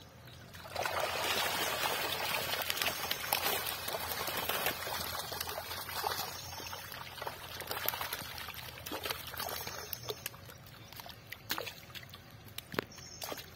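Water pouring and splashing off a fishing net as it is lifted out of a pond, with caught fish thrashing in the mesh. The rush of water starts about a second in and fades after about six seconds, leaving a few separate splashes near the end.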